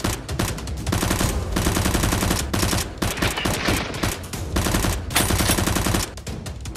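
Rapid automatic-gunfire sound effect, laid over a Nerf blaster fight, in three long bursts of a second or more each, with short gaps between.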